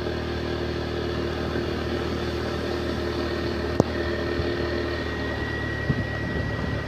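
Steady hum of a motor vehicle's engine running at an even speed, with one sharp click a little under four seconds in.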